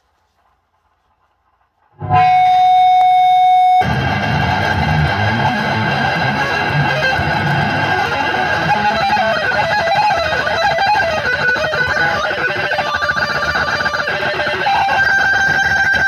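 Heavily distorted extended-range electric guitar: after about two seconds of near silence, a chord rings out held, then fast low riffing runs on.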